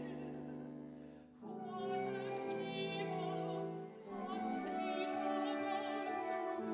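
Operatic classical music: long held notes with vibrato over strings, a brief lull about a second and a half in before the next phrase begins.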